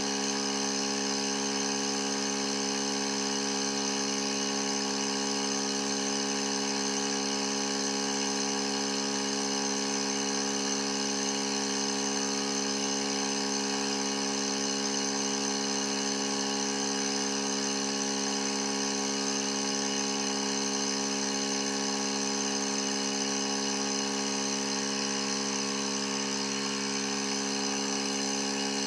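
Cooling-air blower of a turbine-blade thermal barrier coating demonstrator running steadily, blowing cooling air through the specimens with the heating switched off. A constant whirring hum with a high whine over it.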